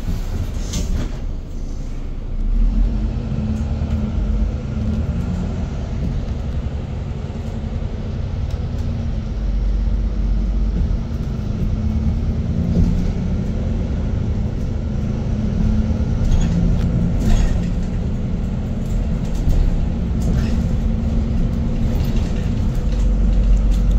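Inside a moving bus: a steady low rumble of the bus's engine and tyres on the road, swelling slightly about halfway through.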